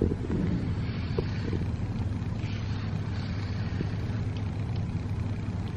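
Domestic cat purring close up, a steady low rumble, with soft strokes of a brush through its fur.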